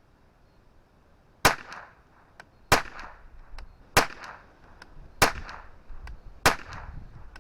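Five shots of Eley Contact subsonic .22 LR from a CZ 457 bolt-action rifle, evenly spaced about a second and a quarter apart, beginning about a second and a half in. Fainter clicks fall between the shots.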